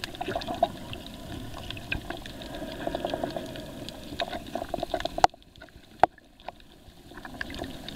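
Underwater ambience recorded by a camera on a coral reef: a rough water noise full of scattered small clicks and crackles. About five seconds in, a sharp click comes and the sound turns much quieter, with a few more single loud clicks after it.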